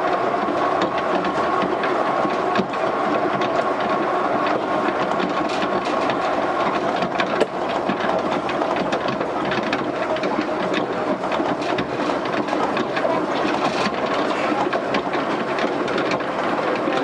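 Yukarigaoka Line 1000-series rubber-tyred people mover running, heard inside an unpowered trailer car: a steady rumble with an even hum, and scattered knocks from the guideway. One sharper knock comes about halfway through.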